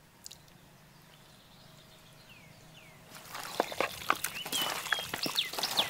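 Hands mixing masala-coated mutton in a bowl, wet squelching and clicking that starts about three seconds in after a quiet opening. Birds chirp outdoors throughout.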